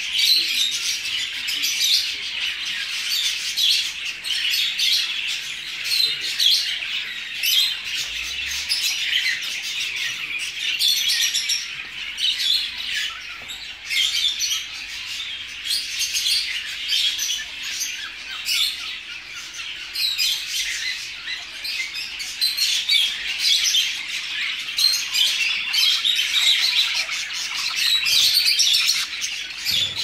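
Many caged pet birds, including finches, cockatiels and budgerigars, chirping and chattering at once in a dense, unbroken twittering.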